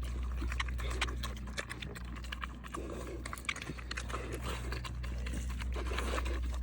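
Pigs eating, chomping and smacking their food with many quick, irregular wet clicks, over a steady low hum.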